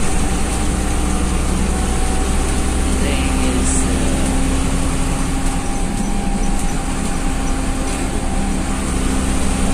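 Bus engine and road noise heard inside the cabin of a moving bus: a steady, unbroken drone with a low hum.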